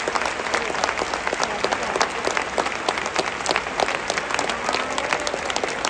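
Large crowd of football supporters clapping, dense and steady, with a faint voice calling out near the end.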